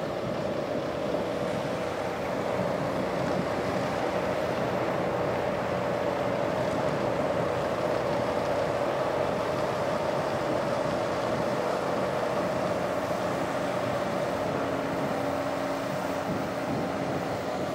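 Tractor-mounted rotary snowblower at work close by: the tractor's engine and the blower running steadily, a constant whine over a broad rushing noise, growing a little louder after a couple of seconds as it draws near and easing off near the end, heard from inside a vehicle.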